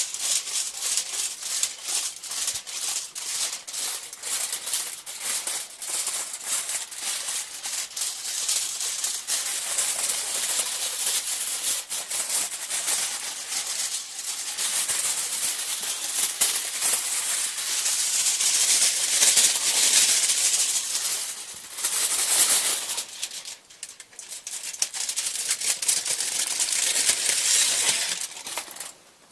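A crinkly sheet, parchment paper or foil, being handled, crumpled and rustled by hand close to the microphone. It gives a dense, continuous crackle made of many small clicks, with a short lull about three-quarters of the way through.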